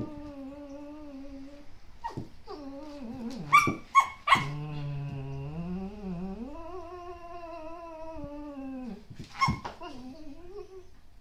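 Dog play vocalizing: long, wavering whines and grumbles, broken by three sharp yips about three and a half to four and a half seconds in and another near the end.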